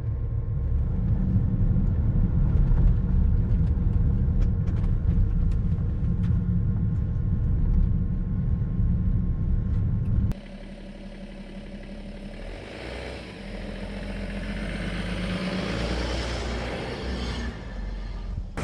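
Diesel BMW E70 X5 driving along a rough trail: a steady low rumble with scattered knocks and rattles. About ten seconds in it cuts off suddenly, leaving a quieter rushing noise that swells and fades.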